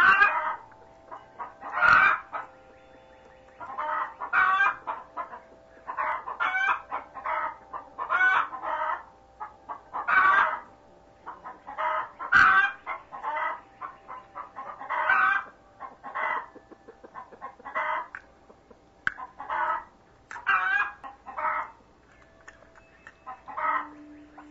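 Chickens clucking: short calls repeated every second or two, sometimes in quick clusters.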